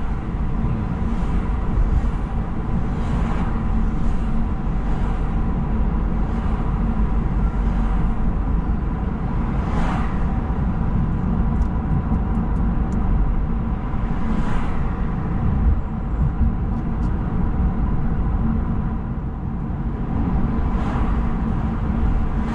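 Road noise inside a moving car's cabin: a steady low rumble from engine and tyres, with a few brief swells of hiss.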